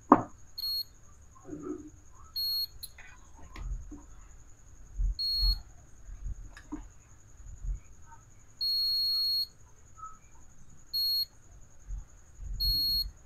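A digital multimeter's continuity buzzer gives about six short, high, steady beeps at uneven intervals, the longest lasting about a second near the middle, as the probes touch across a capacitor on a mobile phone's circuit board. A beep from both directions is taken as the sign of a shorted capacitor. Faint taps of the probe tips come between the beeps.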